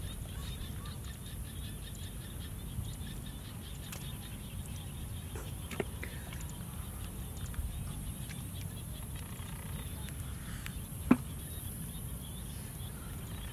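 Bare hands digging and scooping through wet paddy-field mud, with scattered soft squelches and a few short sharp knocks, the loudest about eleven seconds in, over a steady low rumble.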